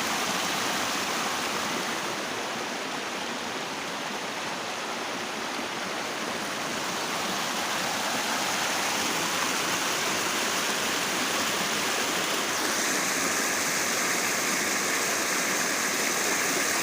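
Water rushing and splashing steadily, as in a swollen stream or a small waterfall. The sound shifts slightly in character about thirteen seconds in.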